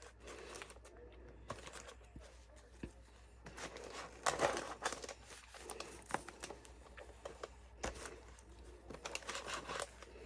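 Rustling and light clicks of a microwave flower press being handled, its felt and fabric pads moved about, loudest for a moment about four seconds in.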